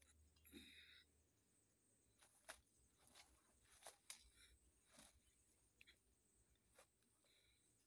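Near silence, with faint rustling and a few soft clicks scattered through it as a seated person smooths a cloth robe and settles.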